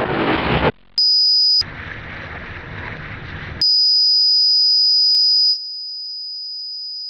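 A high steady electronic beep tone, like a test tone, sounding twice: a short burst about a second in, then a long one about three and a half seconds in that drops in level near the end. A rushing noise fills the gap between them, and every sound starts and stops with an abrupt cut.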